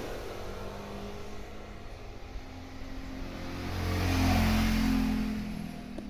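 A motor vehicle's engine running, swelling to its loudest about four seconds in and then fading.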